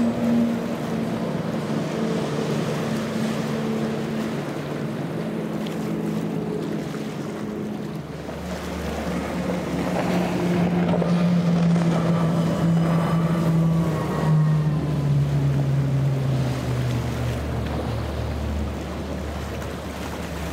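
Triple outboard motors on fast-running offshore boats, with hull spray, chop and wind on the microphone. First a Jeanneau's triple Yamaha 300s pass. About eight seconds in, a Sea Vee's triple Mercury 400s take over, adding a low rumble; their engine note grows louder and then drops in pitch.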